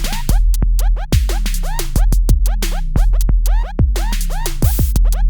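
Electronic dance music with a heavy bass, a drum-machine beat and repeated quick falling pitch sweeps, played through an XDOBO Queen 1996 Bluetooth speaker for a sound test.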